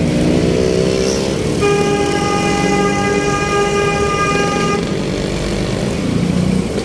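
Street traffic running, with a vehicle horn held on one long steady note for about three seconds, starting a couple of seconds in.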